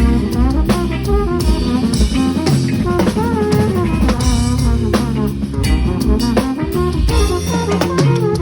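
Drum kit played along with a recorded soul-jazz backing track, steady drum strokes under a lead melody that bends up and down over a bass line.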